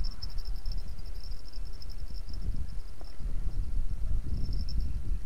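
An insect, cricket-like, chirping in a fast pulsing trill that breaks off about three seconds in and comes back briefly near the end, over a low rumble.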